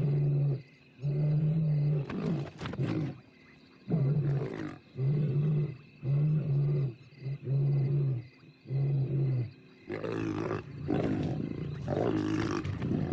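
African lions calling in an even series of low, short calls, each under a second long and about one a second. About ten seconds in, this gives way to rougher, continuous snarling as a young lioness rears up and snarls at a male lion.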